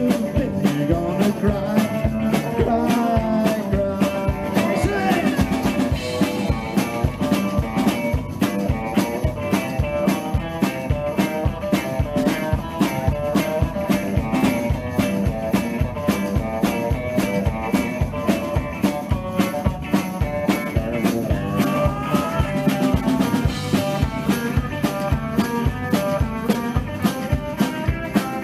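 A rock and roll band playing live: electric guitars, upright double bass and a drum kit, with a steady, even beat.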